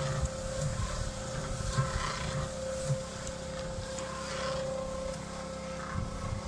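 Small electric cement mixer running, its drum turning and tumbling a batch of sifted earth and water for cob. A steady motor hum with an uneven rumble from the churning mix.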